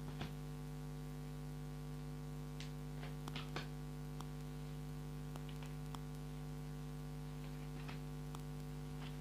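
Steady electrical hum on the recording, with a few scattered light clicks and taps.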